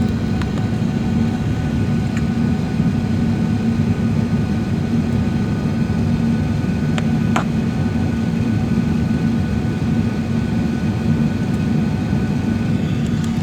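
Steady jet airliner cabin noise: the engines and airflow as heard inside the passenger cabin, a constant low hum with a faint click or two about seven seconds in.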